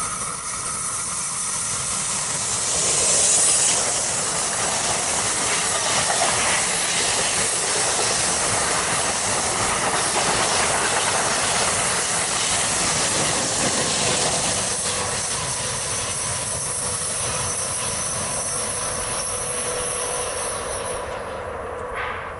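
Commuter train of double-deck passenger coaches, in NJ Transit livery, passing close by: a steady rush of wheel-on-rail noise with faint clicking over rail joints, loudest a few seconds in.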